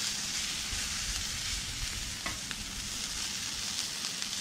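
Sausage and potatoes sizzling steadily on a Blackstone flat-top griddle, stirred with a metal spatula scraping the steel cooktop, with a couple of light spatula clicks about halfway through.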